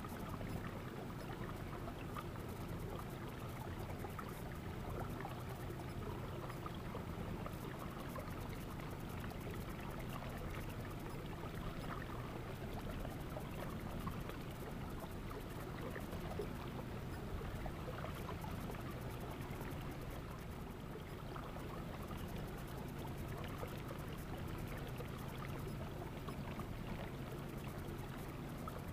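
Bass boat moving slowly through calm water: a steady low motor hum, with water trickling and lapping along the hull.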